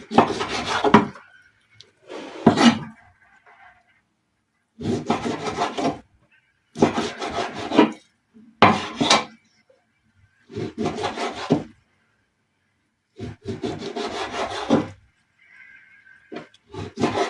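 Kitchen knife sawing through raw beef against a cutting board, in about eight bursts of roughly a second each with short pauses between cuts.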